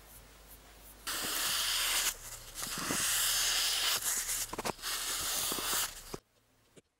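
Loud steady hiss starting about a second in, in long stretches broken by short gaps, cutting off abruptly about six seconds in.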